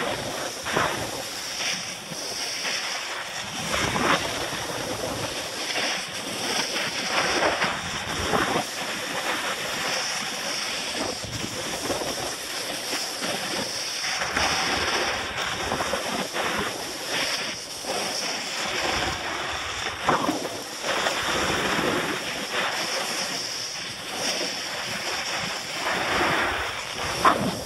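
Snowboard sliding down spring snow: a continuous scraping hiss that swells and fades with each turn, with wind buffeting the microphone.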